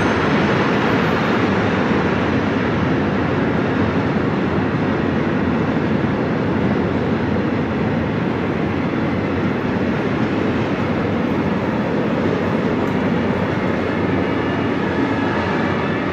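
Freight train rolling past at steady speed: the continuous rumble and clatter of its wagons' wheels on the rails. Near the end, a high whine of several steady tones comes in over it.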